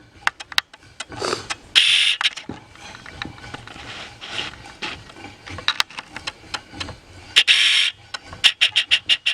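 Irregular sharp clicks and two short scraping strokes, with a quicker run of clicks near the end.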